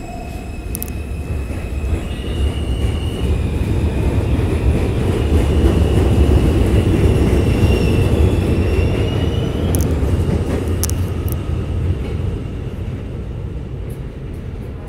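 R160 subway train with Alstom traction accelerating out of the station. The traction motors whine and rise in pitch, and a heavy wheel-and-rail rumble builds to its loudest about halfway through, then fades as the train pulls away. A few sharp clicks of wheels over rail joints come a little after the loudest point.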